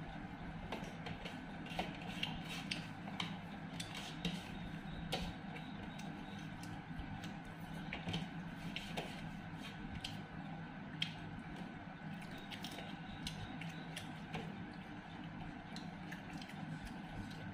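Eating by hand from ceramic plates: scattered light clicks and taps of fingers working rice and food on the plates, along with mouth sounds of eating, over a steady low hum.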